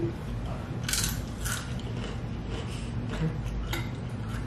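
Close-up crunching of Doritos tortilla chips being chewed: several sharp, crisp crunches spread about half a second to a second apart.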